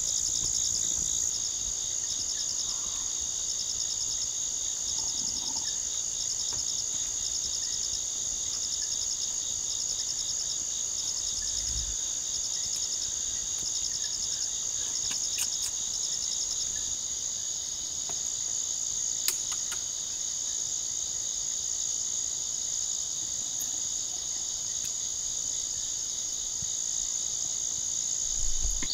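Night chorus of jungle insects such as crickets, a steady high-pitched trilling with rapid pulsing. A few sharp clicks stand out around the middle.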